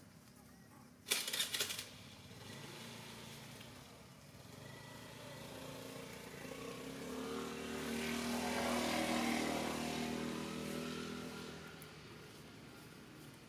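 A motor vehicle engine passing by, its hum swelling to a peak about two-thirds of the way through and then fading. A brief loud rattling burst comes just over a second in.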